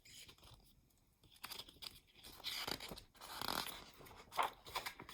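Quiet rustling and light crinkling of paper: the pages of a picture book being handled and turned, starting about a second and a half in.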